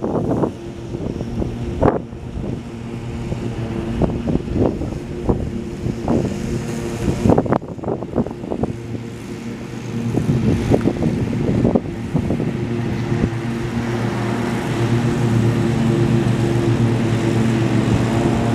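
A GE C44-9W diesel-electric locomotive's 16-cylinder engine running with a steady drone, building louder over the last few seconds as it loads up. Sharp thumps of wind hit the microphone in the first half.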